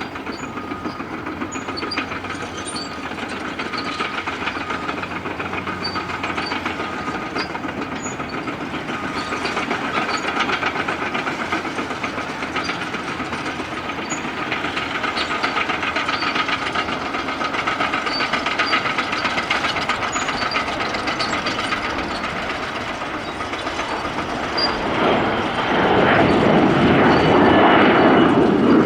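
Jet airliner engines running, a steady whine over a broad rush that builds slowly and then grows sharply louder about 25 seconds in.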